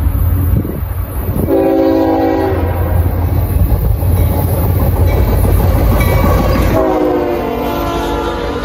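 Norfolk Southern freight train's diesel locomotives rumbling heavily as they approach and pass. The lead locomotive's air horn sounds twice: a short blast about a second and a half in, then a longer one near the end as the engines go by, its pitch dropping slightly.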